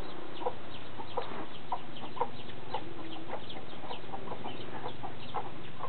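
Chickens clucking: scattered short clucks, a few every second, with one brief low call about three seconds in.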